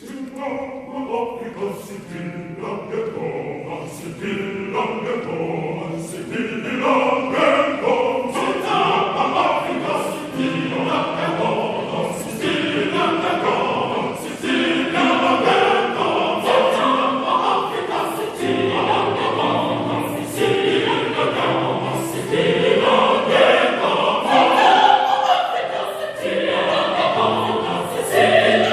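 Choir singing a song in multi-part harmony. Deeper voices come in about two-thirds of the way through.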